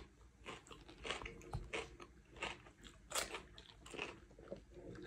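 Someone biting and chewing raw cucumber: a string of faint, crisp crunches at an uneven pace, about two a second.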